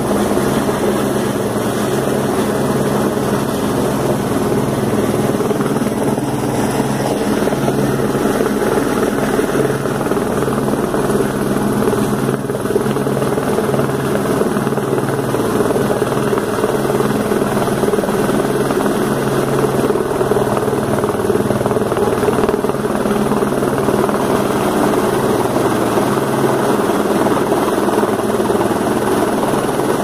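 Rescue helicopter hovering low overhead, its rotor beating steadily over the turbine's running noise.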